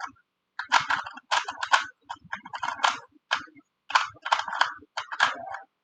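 A Rubik's brand cube being turned quickly by hand, its plastic layers clicking and clacking in rapid runs with short pauses between, during the F2L stage of a speedsolve.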